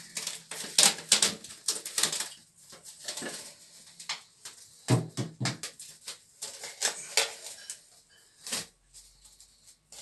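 Plastic cling film crinkling and crackling in irregular spells as it is pulled off the roll, stretched and pressed down over a toilet bowl's rim to seal it airtight, with a few dull handling bumps.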